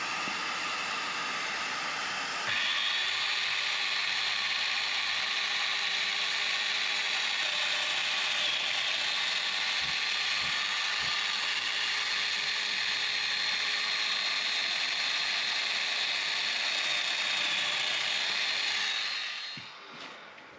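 Festool DF 500 Domino joiner running with its dust extraction, plunge-cutting a mortise. A steady rush steps up about two and a half seconds in to a louder run with a high whine, holds steady, then dies away near the end.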